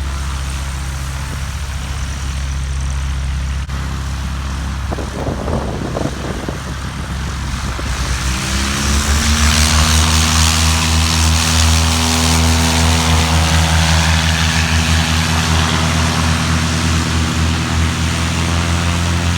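Propeller airplane's piston engine running steadily, then throttling up about eight seconds in: its pitch rises and it grows louder, with a rush of propeller noise.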